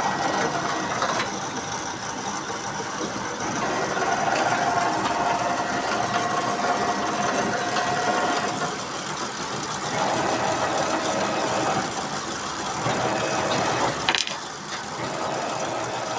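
Industrial comforter sewing machine running with no fabric under the needles, being warmed up before sewing. A steady mechanical run, with a whine that comes and goes a few times and a sharp click about 14 seconds in.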